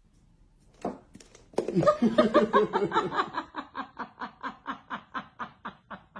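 A person laughing in a long run of rhythmic pulses, about four a second, starting about a second and a half in and trailing off near the end.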